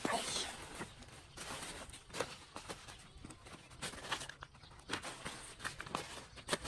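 Plastic bags and loose papers crinkling and rustling as a hand rummages through a pile of household rubbish, in irregular crackles and short rustles.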